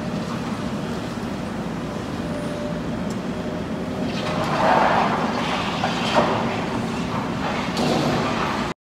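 Demolition machinery engines running steadily, with a louder noisy rush about four to six seconds in and a sharp clank about six seconds in. The sound cuts off just before the end.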